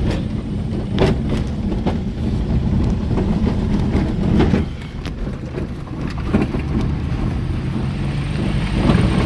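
Vehicle heard from inside the cabin on a rough dirt farm road: a steady engine and tyre hum, with scattered sharp knocks and rattles as it goes over bumps.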